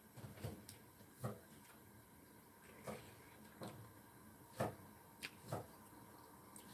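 Faint, scattered light clicks and small knocks, about eight of them at irregular moments, the loudest a little past the middle, over a quiet room.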